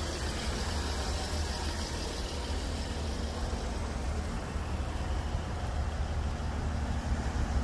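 Jaguar XJL engine idling, a steady low hum.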